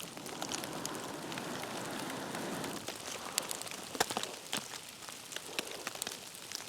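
Rain and sleet pattering, with many scattered sharp ticks.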